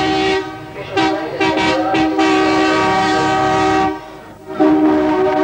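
Electric interurban train's horn sounding a chord in long blasts: one ends shortly after the start, a second holds for about three seconds, and a third begins near the end.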